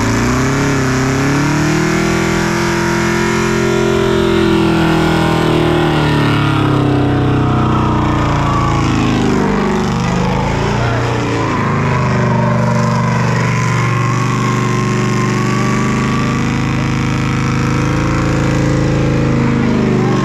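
Car engine revving and running, its pitch climbing over the first few seconds, dropping away around ten seconds in, then holding steady near the end.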